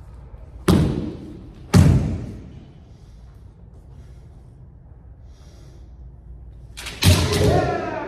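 Kendo sparring on a wooden floor: two sharp cracks of bamboo shinai strikes with stamping feet, about a second apart, then near the end a quick flurry of strikes and stamps under a shouted kiai.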